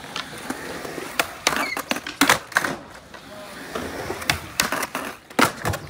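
Skateboard wheels rolling on concrete, broken by a run of sharp clacks and knocks from the board, clustered about two seconds in and again near the end.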